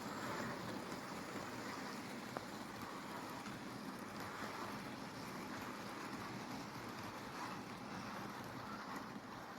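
OO gauge model train running on the track: a steady rolling rumble with a few small clicks.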